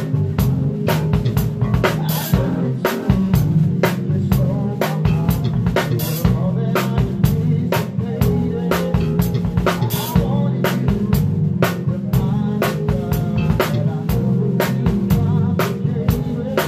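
A live band playing an R&B/funk groove, with a drum kit close to the microphone and loudest: a steady pattern of kick, snare and cymbal strokes over the band's sustained pitched parts.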